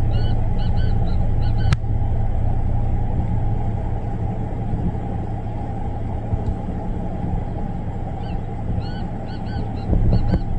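A gamebird calls twice: a quick phrase of short, pitched notes in the first second and a half, then another phrase near the end. A steady low rumble runs underneath and is louder than the calls.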